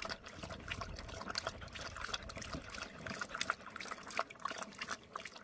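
Water trickling and splashing, a dense run of small sharp splashes.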